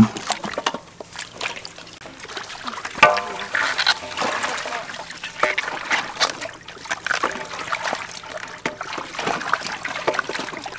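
Water splashing and dripping in metal basins as raw chicken feet and then vegetables are rinsed by hand.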